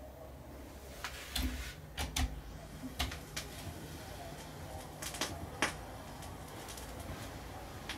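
Vinyl record turning under the stylus in the lead-in groove: scattered crackles and pops over a steady low rumble from the turntable.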